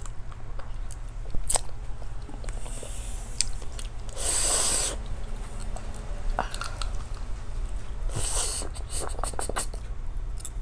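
Close-up mouth sounds of a person eating a fish head by hand: small wet smacks and chewing clicks, with two longer sucking sounds about four and eight seconds in as the brain and flesh are sucked out.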